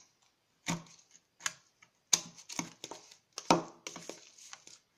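A metal table knife stirring wet canned corn kernels in a plastic tub, its blade clicking and scraping against the tub's sides in irregular strokes, thickest in the middle of the stretch.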